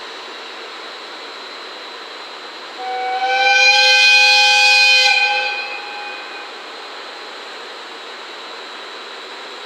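The air horn of JR West EF65 electric locomotive No. 1132 sounds one long blast of about three seconds, starting about three seconds in. It is a multi-note horn that slides up slightly at the start and then holds steady before fading.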